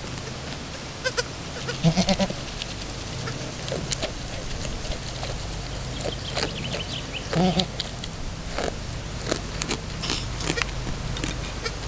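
Camosciata delle Alpi goat bleating: two short, low, wavering bleats, about two seconds in and again about seven seconds in, with scattered small clicks and rustles in between.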